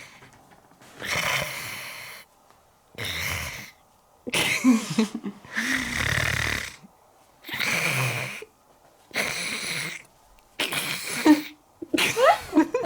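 Exaggerated comic snoring voiced for a puppet: a string of about eight separate snores, roughly one a second, with a higher voice sliding up and down near the end.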